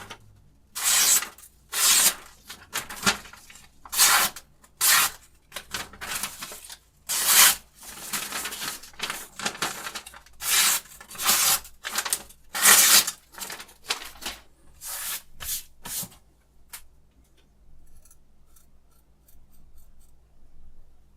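Knife blade swiped repeatedly in short rasping strokes, about a dozen irregularly spaced swipes. They stop about sixteen seconds in, leaving only faint ticks.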